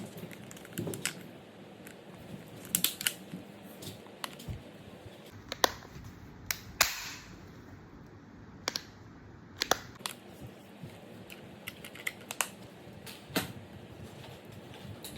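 Scattered sharp clicks and clacks, a dozen or so at irregular intervals, from a toy Karabiner 98k rifle being handled, with a short rushing noise about seven seconds in.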